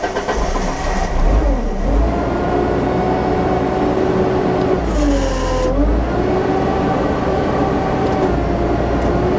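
The JLG 80HX boom lift's engine running steadily, just after being started. About five seconds in, its pitch sags briefly and recovers, together with a short burst of hiss.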